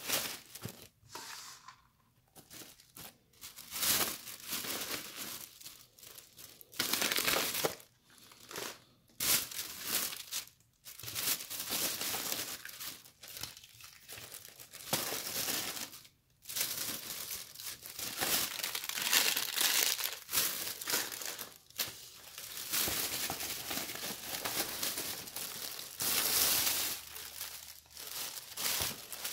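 Thin plastic carry-out bag crinkling and rustling in irregular stretches as hands rummage in it and pull food containers out, with short pauses between handlings.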